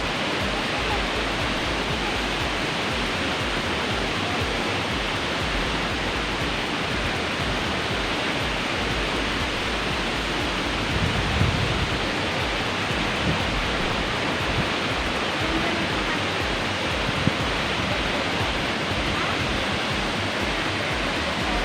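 Waterfall rushing: a steady, even hiss of falling water, with a couple of small knocks around the middle.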